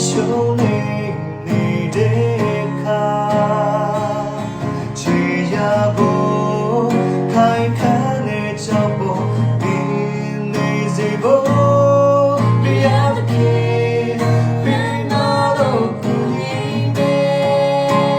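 Music: a gospel song with acoustic guitar accompaniment and a singing voice.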